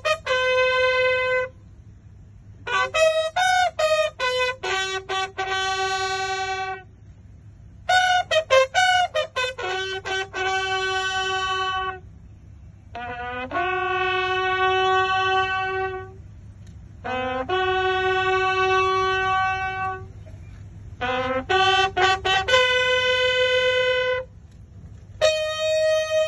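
A single bugle sounding a military call during the honours: about seven phrases, each a run of quick tongued notes ending in a long held note, with short pauses between.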